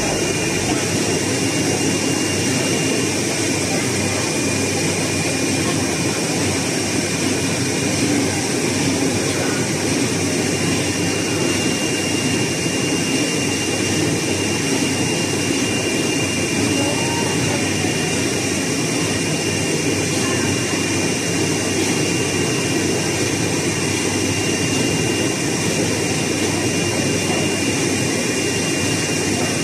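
RUK three-head flatbed cutting machine running while cutting a printed packaging sheet: a loud, steady machine noise with a faint high whine throughout.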